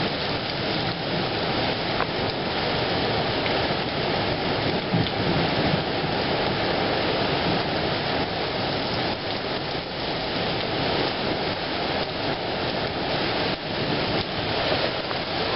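Heavy thunderstorm rain pouring down, a steady dense hiss of water hitting roofs and ground.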